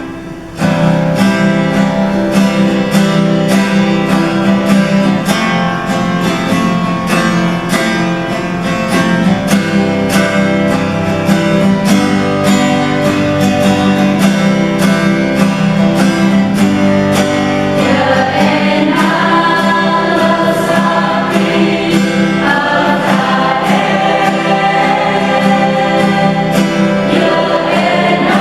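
Music: a choir singing with instrumental accompaniment over a steady beat. The voices come forward about two-thirds of the way in.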